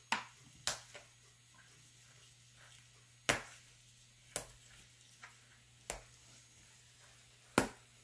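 About six sharp knocks and clicks at irregular intervals from handling things on a kitchen counter and cutting board, over a faint steady low hum.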